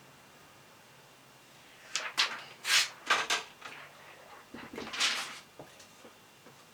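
Thin plastic protective film being peeled off a new laptop screen and handled: several short rasping rustles starting about two seconds in, the longest near the middle and about five seconds in.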